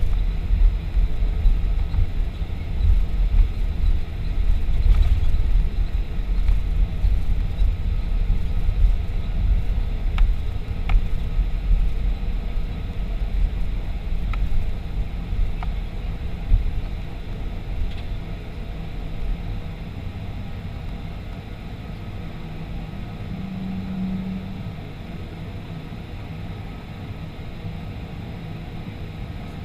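Low, steady rumble from a Boeing 737-500 airliner that eases off about two-thirds of the way through, with a short low hum a few seconds later.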